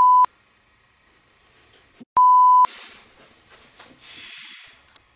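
Two steady 1 kHz censor bleeps, each about half a second long, one at the very start and one about two seconds in, covering a spoken word. A faint hiss follows.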